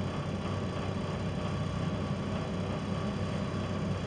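Steady low hum of a Class 172 Turbostar diesel multiple unit heard from inside the passenger saloon, its underfloor diesel engine running evenly.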